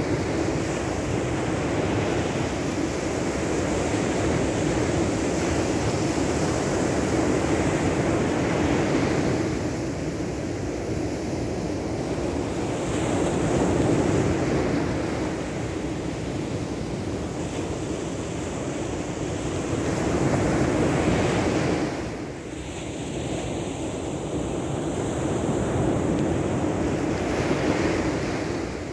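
Sea surf washing in, swelling and fading every six or seven seconds, with wind rushing across the microphone.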